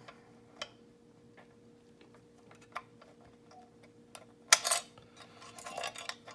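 Lock picks working inside a large lever padlock: sparse light metal ticks and scrapes, with a louder metallic clatter about four and a half seconds in and another short rattle near the end.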